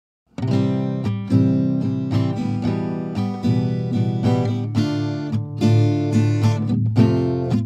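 Background music: acoustic guitar playing plucked and strummed notes, starting about a third of a second in after a moment of silence.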